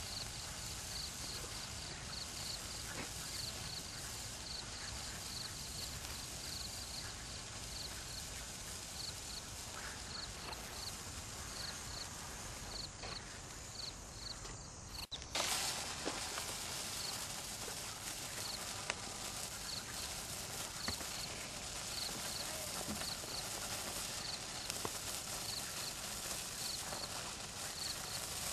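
A burning handheld sparkler fizzing and crackling, with insects chirping in a steady high pulse behind it. About halfway through, the sound breaks off for a moment and comes back a little louder.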